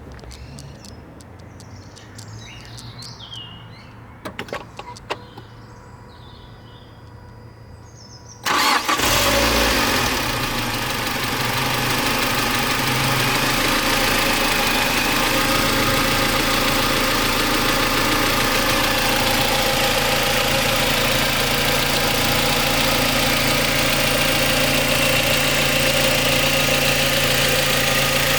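Mazda MX-5 Mk3's four-cylinder engine being started after a few clicks, catching at once about a third of the way in, flaring up briefly and then settling into a steady idle. The idle carries the rattle that the owner is trying to diagnose.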